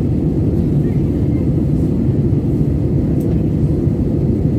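Steady low rumble of cabin noise inside an Airbus A320-family jet airliner.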